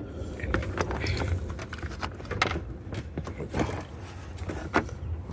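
Hand handling of car battery cables and a clamp terminal: scattered short knocks and clicks, roughly one a second, over a low steady hum.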